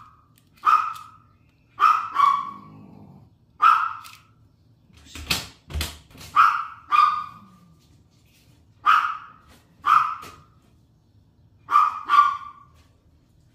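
Chihuahua barking repeatedly: sharp single barks and quick pairs every one to two seconds. Two sharp knocks come a little past five seconds in.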